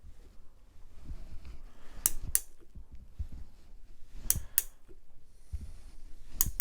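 Ratcheting tap wrench clicking as a tap is worked into an aluminium cylinder head, cutting a new thread for a thread insert. The clicks come in three pairs, about two seconds apart.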